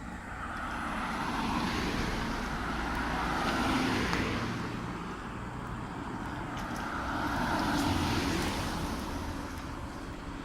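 Two cars passing one after the other on a wet street, the tyre hiss swelling and fading, loudest about four seconds in and again about eight seconds in.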